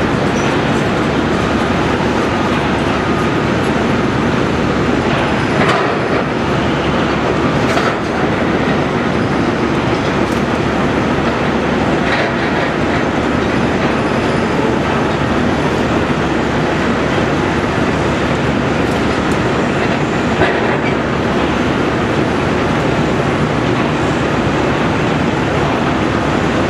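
Steady noise of tracked excavators working and travelling, with a clanking, clickety-clack quality and a few scattered knocks.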